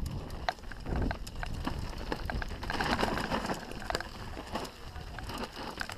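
Canyon Strive enduro mountain bike riding down a rocky forest trail: tyres crunching over dirt and stones, with a stream of small clicks and knocks from the bike rattling over rough ground. The noise swells into a louder rush about three seconds in.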